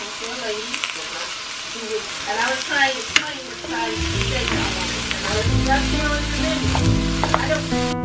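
Zucchini, bell pepper and onion sizzling in a frying pan as they are stirred, with a few sharp clicks. Background music comes in about halfway through and plays over the sizzling.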